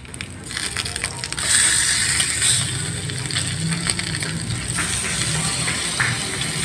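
Pork chops and beef tapa sizzling in a stainless electric skillet, frying without oil. The hiss swells about a second in as the meat is turned, with a few clicks of metal tongs against the pan.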